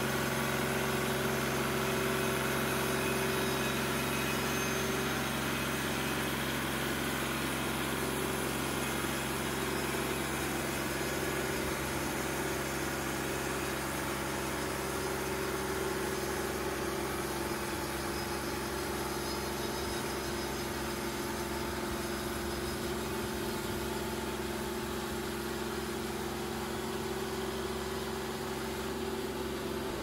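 Engine of a TimberKing 2220 portable bandsaw sawmill running steadily as the sawhead travels along a pine log, milling 2x8 boards.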